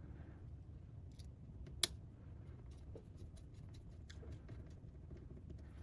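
Faint clicks and taps of small laptop parts and tools being handled on a workbench over a low steady hum, with one sharper click about two seconds in.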